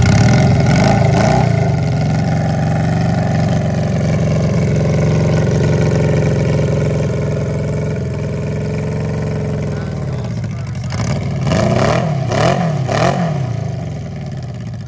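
Custom Honda 550 inline-four motorcycle engine running just after start-up and idling steadily. About eleven seconds in it is blipped three times in quick succession, then settles back to idle.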